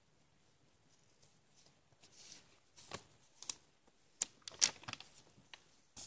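Lined notebook paper pages rustling and crackling as they are turned by hand. The rustling starts about two seconds in and comes in a few sharp crackles, the loudest just past halfway.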